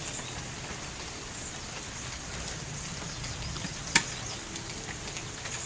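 Rain falling steadily, an even hiss, with one sharp tap about four seconds in.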